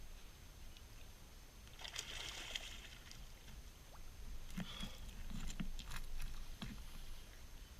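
Faint water sloshing and splashing, with a few scattered clicks and knocks in the second half.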